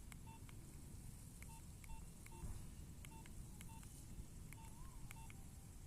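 Faint Nokia mobile phone keypad beeps: about a dozen short single-pitched beeps, each with a light key click, spaced irregularly as buttons are pressed.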